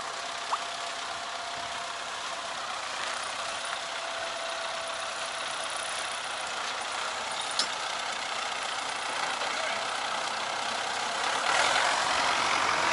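Tractor engine running steadily with a faint steady whine and a couple of sharp clicks; it gets louder near the end.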